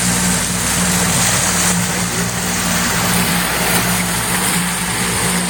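A boat motor running at a steady speed: a constant hum, with a steady hiss over it.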